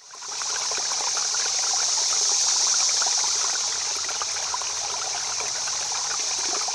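Steady rushing, water-like hiss with a fine crackle through it. It fades in at the start and fades out at the end.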